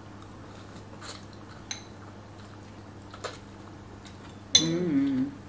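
A few light clinks of cutlery against dishes while eating, some with a short ring. Near the end comes a brief hummed voice sound.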